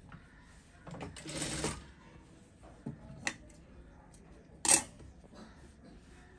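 Handling cloth at a sewing machine: a short rustle of fabric about a second in, then a few sharp clicks, the loudest about three-quarters of the way through.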